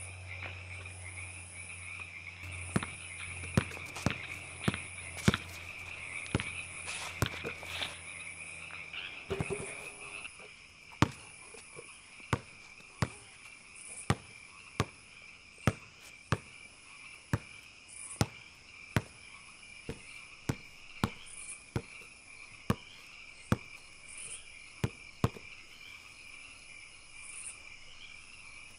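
Basketball bouncing on a concrete court as it is dribbled, a sharp thud a little over once a second that settles into an even rhythm, over a steady chorus of crickets and other night insects. A low hum runs through the first third and then stops.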